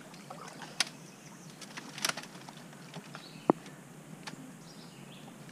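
Small splashes and knocks of hands and arms feeling about in shallow creek water under a log and brush pile. There are a few sharp clicks, and the loudest is a single brief knock about three and a half seconds in, over faint chirping in the background.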